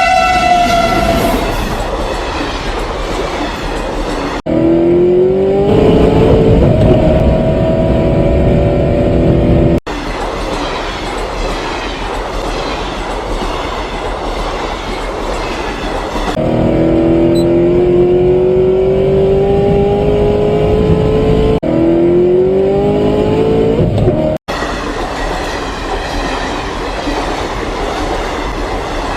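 Train sound effects spliced together: the steady rumble of a running train, broken twice by a loud, slowly rising stacked tone, about 5 s in and again about 16 s in. The pieces change abruptly at hard cuts.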